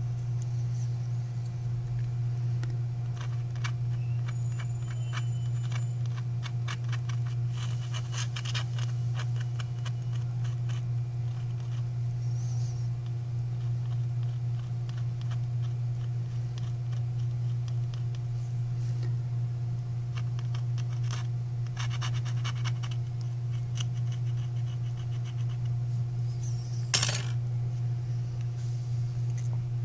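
Small scratches and ticks of metal tweezers working at the rear camera lens cover of a Samsung Galaxy S7, with one sharper click near the end, over a steady low hum.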